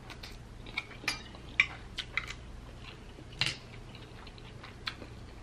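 Close-miked eating: chewing noodles, with a run of short clicks of a metal fork on a plate. The loudest click comes about three and a half seconds in, as the fork is put down on the plate.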